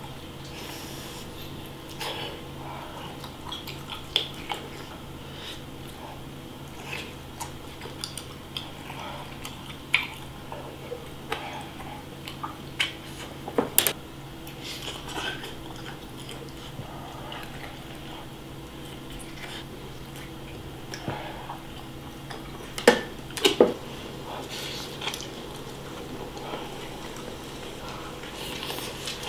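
Close-up eating sounds: biting and chewing skewered fish cake (eomuk), with scattered small clicks and clinks of the ceramic bowl and the wooden skewers against dishes, over a faint steady hum. A few louder clinks come near the middle and about three-quarters of the way through.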